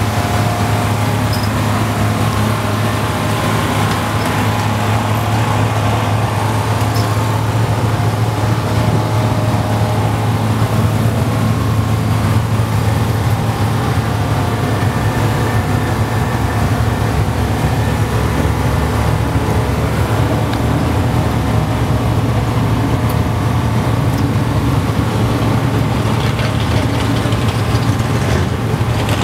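Twin-turbocharged, alcohol-injected V8 of a Pro Mod drag car idling steadily during warm-up.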